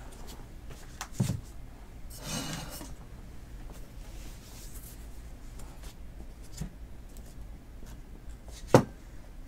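Stacks of trading cards handled and moved on a tabletop: a few light knocks, a short rubbing slide about two seconds in, and one sharp knock near the end, the loudest.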